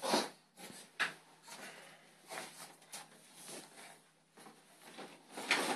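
Pomeranian rubbing and rolling on a bath towel to dry itself: irregular fabric rustling and scuffing, with a sharper knock about a second in and a louder scuffle near the end.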